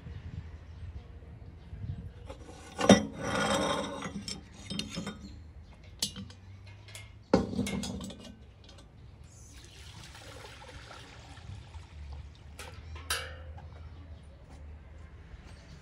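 Metal cookware being handled: a loud knock about three seconds in and another about seven seconds in, each ringing briefly, with smaller clinks between, then a soft rushing hiss like liquid being poured and a last clank near the end.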